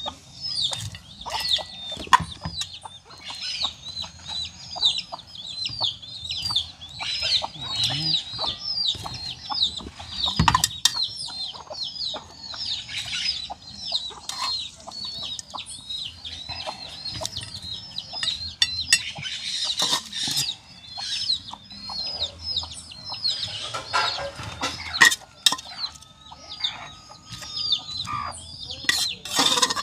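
Birds chirping steadily, with many short high calls, about three a second. Now and then a sharp clink comes from metal tongs and a fork against an aluminium pot and a plate.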